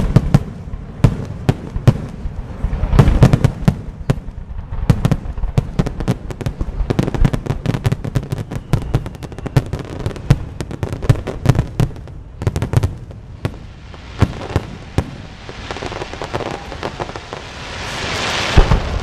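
Fireworks display: a rapid series of aerial shell bursts, booms and crackles, densest in the middle. Near the end a hiss swells and a loud bang lands.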